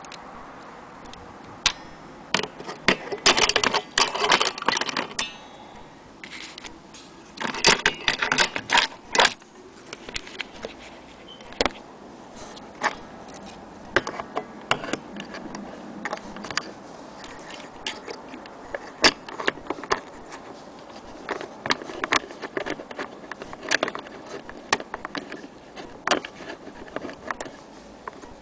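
Irregular metallic clicks, clinks and rattles of an old wall clock and its metal parts being handled, with no steady tick. Two busier clattering stretches come a few seconds in and again about eight seconds in.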